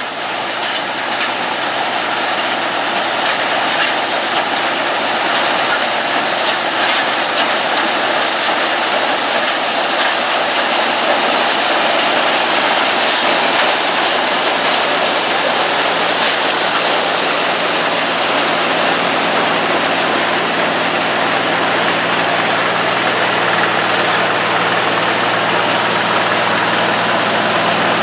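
John Deere 55 EB combine harvesting soybeans: its engine and threshing machinery running steadily under load. The sound fades up over the first few seconds.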